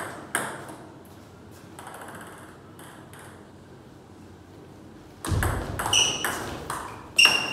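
Table tennis ball clicking off paddles and the table: a couple of light taps at the start, then a rally beginning about five seconds in, with a low thump followed by sharp hits every third of a second or so, some ringing with a high ping off the table top.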